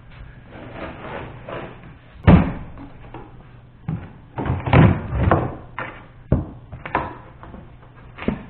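Painted baseboard being pried off a wall with a pry bar: a series of sharp cracks and knocks as the board pops loose, loudest about two seconds in and again in a cluster around five seconds, with scraping between.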